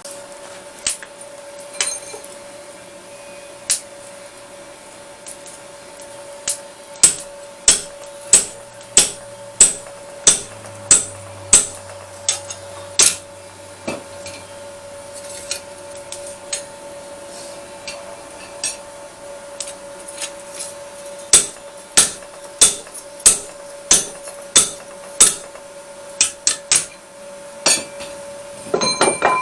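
Hand hammer striking hot steel on an anvil while forging a smatchet blade. The blows come in runs of about one and a half to two a second, with pauses and a few single strikes between the runs, over a steady hum.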